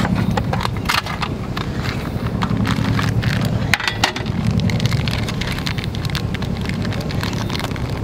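Crinkling of a plastic bag of lip-balm-soaked cotton tinder and light clicks of a small metal tin being handled, with the sharpest click about four seconds in. A steady low hum runs beneath.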